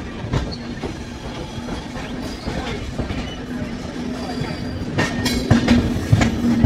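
Wheels of a passenger coach clicking and clattering over rail joints and points as the train rolls slowly through a station yard. A steady low hum grows about five seconds in, with a louder clatter around then.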